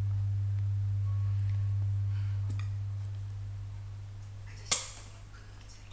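A steady low hum that fades away over the last couple of seconds, with a single sharp click about four and a half seconds in.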